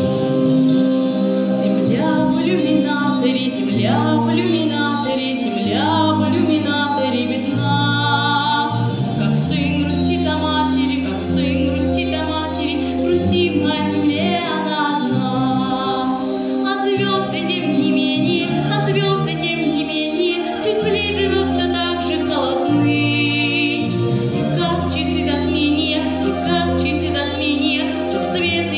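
A young man singing a song solo, accompanying himself on an acoustic guitar.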